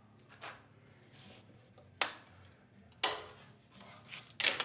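A few sharp knocks and clicks from wood pieces and a bar clamp being handled on a workbench: one about two seconds in, another a second later, and a quick double near the end.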